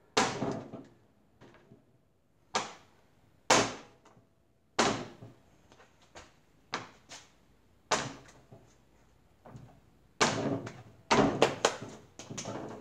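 A lump of wet clay slapped down hard onto a wedging board again and again as it is wedged and squared into a block: about a dozen dull slaps, one to two seconds apart, coming quicker near the end.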